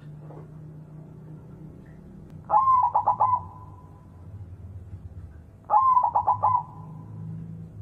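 White zebra dove (perkutut) cooing. It gives two song phrases about three seconds apart, each a rising first note followed by a quick run of four or five staccato coos that trail off into a faint held note.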